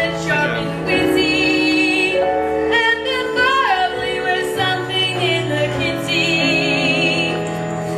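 A show tune from a stage musical: a female voice singing over instrumental accompaniment, holding a long note with vibrato near the end.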